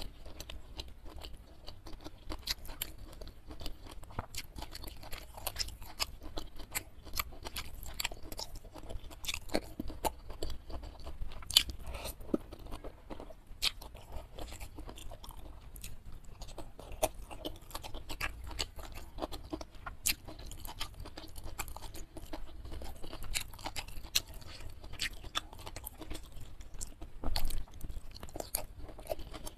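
Close-miked chewing and crunching of a mouthful of food eaten by hand, with many short, irregular crunches and wet clicks.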